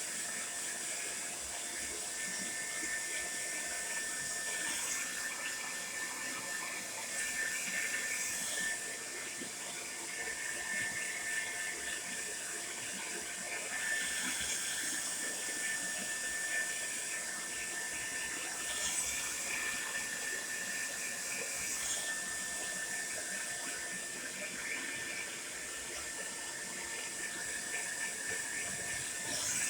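Tresemmé Salon Smooth Professional hair dryer running steadily: a hiss of blown air with a thin, steady high whine from the fan motor, swelling briefly every few seconds.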